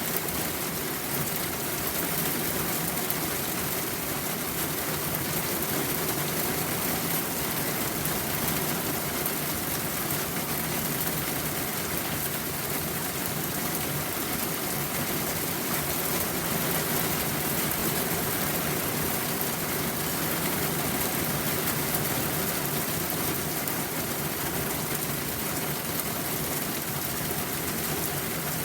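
Steady rain falling, an even hiss of many drops with no pauses or single events.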